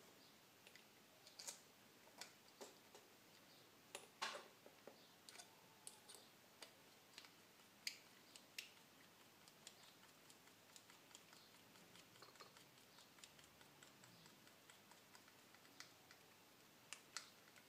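Faint, irregular small clicks and light ticks of a small screwdriver and 3D-printed plastic engine parts being handled while a screw is driven in to fix a propeller to the crankshaft. The clicks are most frequent in the first half and thin out later.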